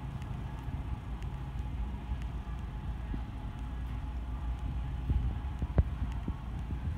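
Supermarket interior sound: a steady low rumble and hum, with a few light clicks and ticks from about five seconds in.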